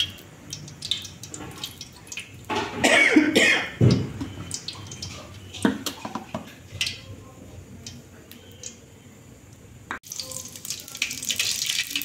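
Cooking oil poured from a plastic bottle into an aluminium kadai, with several louder knocks and noises about three to four seconds in. Near the end a dense crackling hiss starts suddenly, as the oil in the pan heats on the gas flame.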